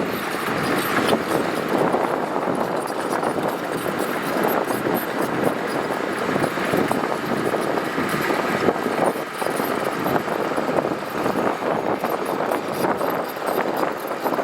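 Heavy earthmoving machinery working gravel, a diesel engine running steadily in a dense, continuous noise.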